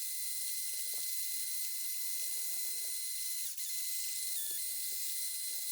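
Lamello magnetic tool running against a magnetic padlock: a steady high whine over a hiss, its pitch dipping briefly twice past the middle, with faint clicks from the lock.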